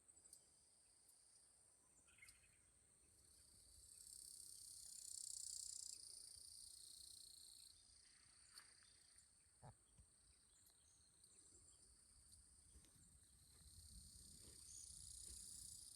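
Faint insects chirring in steady high-pitched bands, swelling louder about four to six seconds in and again near the end, with a few faint clicks.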